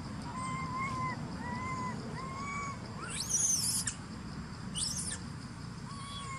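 Animal calls: a run of short, even-pitched whistling calls about a second apart, with two louder, high, rising squeals around the middle.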